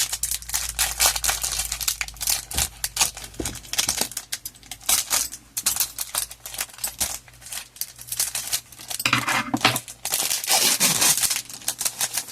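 Thin plastic packaging crinkling and tearing as it is handled and pulled open by hand, in irregular bursts of rustling throughout.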